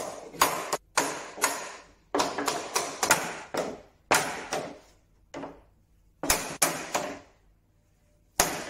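Small hammer striking a mahogany sleigh bed's end, about fifteen sharp blows in uneven runs with short pauses, each ringing briefly: knocking the end off the bed frame to take the joint apart.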